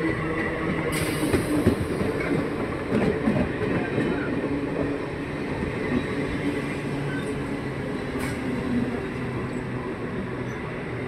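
Eastern Railway EMU electric local train running past close by, its wheels clattering over the rail joints in a run of knocks during the first few seconds, over a steady hum and rumble.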